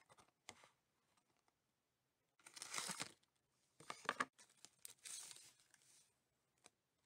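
Cardboard box of Morinaga DARS mint chocolates being torn open and its tray of chocolates pulled out: three bursts of paper tearing and crinkling, with a few light clicks near the start.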